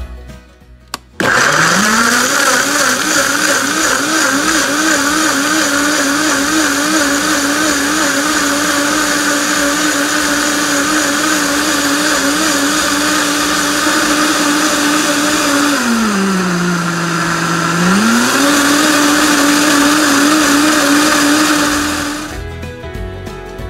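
Countertop blender motor starting about a second in and running as it blends milk and fruit into a milkshake. Its pitch wavers at first and then steadies, drops for a couple of seconds, comes back up, and the motor cuts off shortly before the end.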